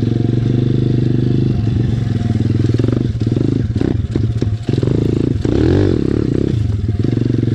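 SSR 170TX pit bike's single-cylinder four-stroke engine running at low speed, with a cluster of knocks and clatters around the middle as the bike goes over rough ground. About six seconds in the engine revs up briefly and drops back.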